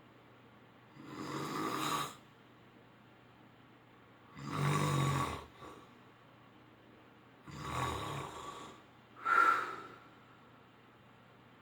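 A sleeping man snoring: four snores about every three seconds, the last two closer together.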